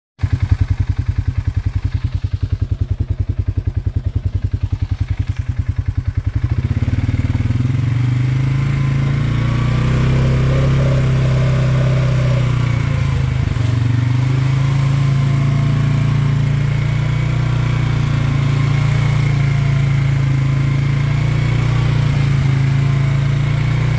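2024 Polaris Sportsman 570 ATV's single-cylinder engine idling with a fast, even putter of firing strokes. About six seconds in it revs up and runs steadily under way, rising and falling in pitch with the throttle.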